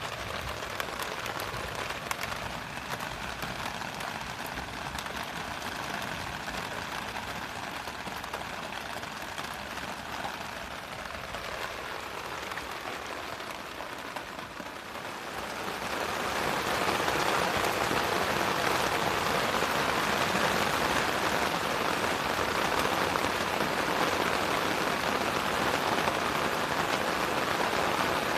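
Heavy rain falling steadily, a downpour that grows clearly louder about halfway through.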